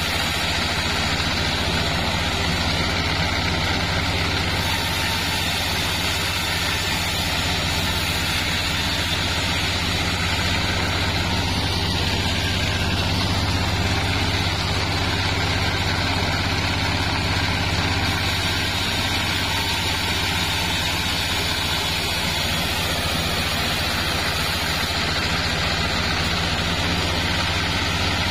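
Band sawmill running steadily, its blade sawing lengthwise through a sengon log over a steady low engine hum.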